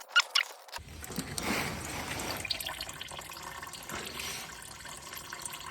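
Used engine oil running and dripping as the oil filter on a 1.2 L three-cylinder Mitsubishi Mirage is unscrewed by hand, with a few sharp clicks at the start.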